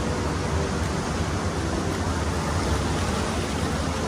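Steady rush of a fast-flowing river running over rapids.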